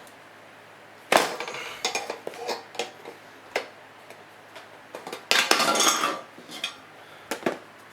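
Sheet-metal clanks, clicks and scraping as a sealed steel surplus ammunition tin (spam can) is forced open by hand: a sharp clack about a second in, scattered clicks, and a longer scrape a little after the middle.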